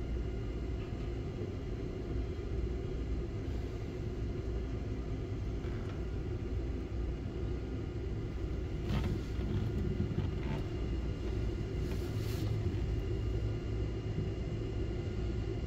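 Steady low rumble with a faint steady hum: the background drone high up in a tower crane's cab, with city traffic far below.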